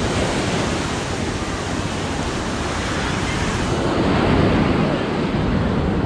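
Steady wash of ocean surf mixed with wind buffeting the microphone, swelling louder about four seconds in.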